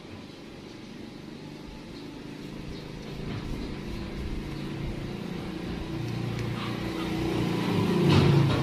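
A motor vehicle's engine approaching, growing steadily louder and loudest near the end.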